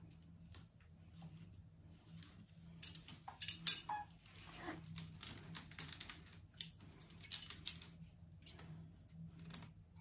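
Scissors snipping the bindings off a coiled Festool vacuum hose, with handling rustle and a series of sharp clicks and snips, the loudest a few seconds in.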